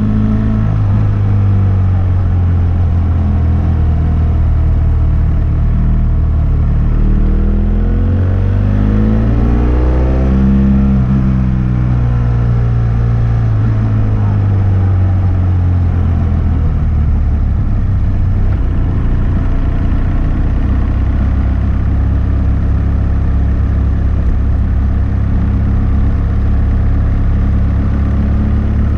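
BMW F800S parallel-twin engine running through a GPR Furore aftermarket exhaust under way. The revs climb for a few seconds about seven seconds in and drop back, then hold steady at cruising speed.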